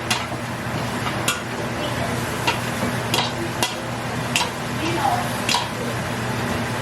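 A utensil stirring butter and marshmallows in a pot, clicking against the pot about once a second over a steady hiss.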